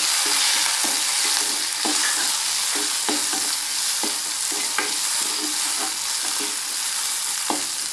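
Chopped onions sizzling in hot oil in a metal kadai, with a metal spoon scraping and clicking against the pan as they are stirred.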